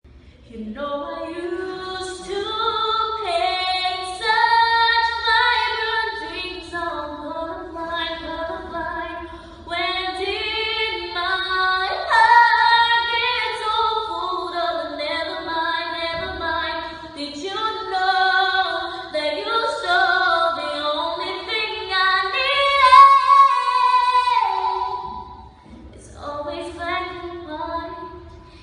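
A young woman singing solo a cappella, with held notes and melodic runs and no accompaniment, breaking off briefly near the end before going on.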